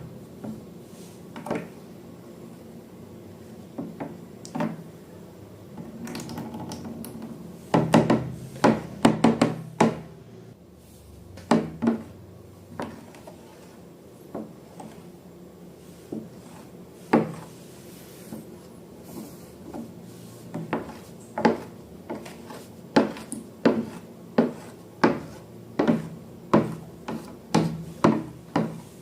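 A run of sharp knocks and taps on hard objects with faint rubbing between them: irregular at first, a quick cluster of knocks about a third of the way in, then roughly one knock a second toward the end.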